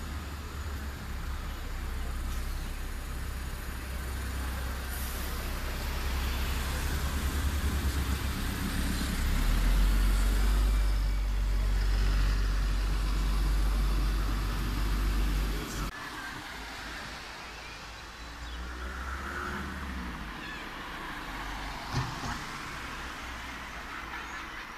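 Town street traffic: cars and heavier vehicles passing, with a deep rumble that builds and then cuts off suddenly about two-thirds of the way through. Quieter traffic noise follows, with a short thump near the end.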